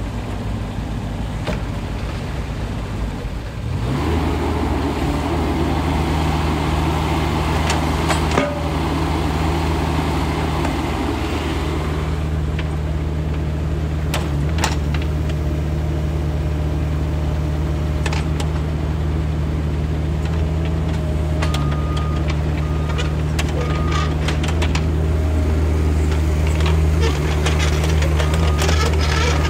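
Bobcat E17 mini excavator's three-cylinder Kubota diesel running steadily, its level stepping up about four seconds in as the boom, arm and swing hydraulics are worked. A few sharp knocks sound over it.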